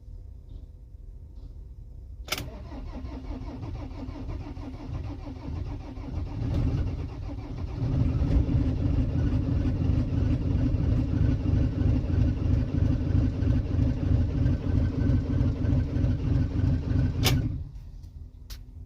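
Cold 2008 Citroën Jumper diesel van being started: the starter cranks for several seconds before the engine catches about eight seconds in, then it runs for about ten seconds and cuts off suddenly. The long crank before it fires is the van's hard cold starting.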